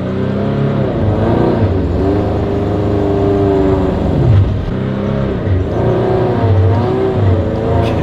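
Turbocharged Scion FR-S's 2.0-litre flat-four engine held at high revs while the new clutch is slipped out to break it in. The engine pitch wavers up and down, dips sharply about four and a half seconds in, then climbs again.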